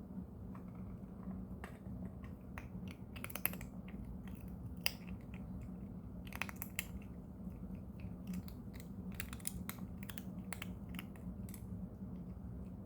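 A cat crunching hard dental treats: irregular crunches, some in quick clusters.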